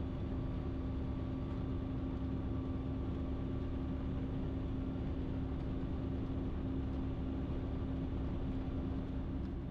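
Ikarus C42 light aircraft's engine running steadily at low taxi power, a constant drone with a steady hum, easing slightly near the end.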